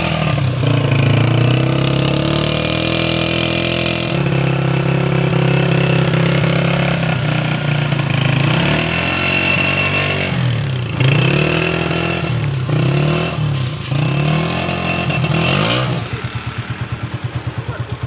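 Honda CG 125's single-cylinder four-stroke engine running, steady at first, then revved with the throttle several times, each rev rising and falling. Near the end it drops back to an even idle, each firing pulse distinct.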